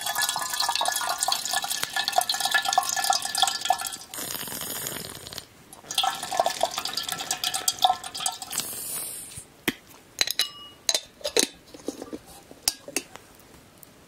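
Water poured in a stream into an open black kettle, splashing and ringing in the metal body, in two pours with a short break between. Near the end come scattered drips and light clinks.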